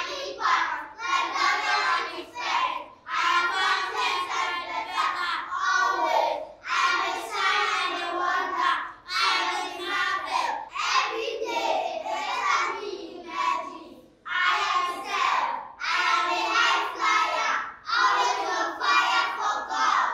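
Children's voices reciting a confession aloud together, phrase by phrase with short pauses between phrases.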